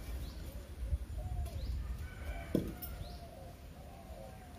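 Domestic chickens clucking, a run of short repeated calls, with a few faint high bird chirps. One sharp knock sounds about halfway through.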